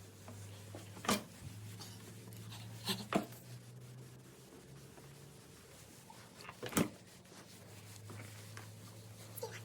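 Microwave oven running with a low steady hum, broken by three short sharp knocks about one, three and seven seconds in.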